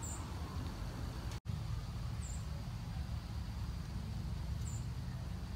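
Three short, high chirps from a small bird, about two and a half seconds apart, over a low steady outdoor rumble. The sound drops out for an instant about a second and a half in.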